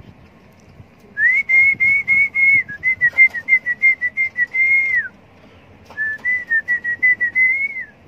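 A person whistling two runs of quick, pulsed notes at a high, nearly steady pitch. The first run lasts about four seconds; the second, after a short pause, about two.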